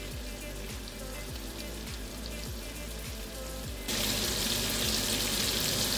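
Background music with a steady beat, then about four seconds in, loud sizzling of pork chops frying in oil in a pan cuts in suddenly.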